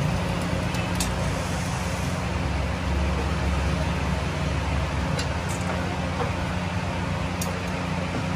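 A machine running steadily with a constant low hum, with a few faint clicks.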